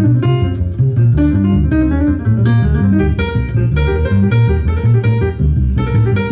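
Guitar music with a heavy bass line played loud, about 90 to 94 dB, through a Paradigm Titan bookshelf speaker with refoamed drivers. The camera microphone is overloaded by the volume and adds a buzz.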